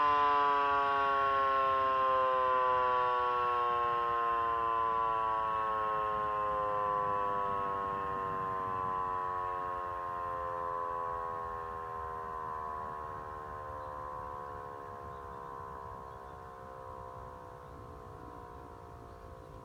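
Motor-driven mechanical siren winding down after its noon time signal: its wail falls slowly and steadily in pitch while fading away.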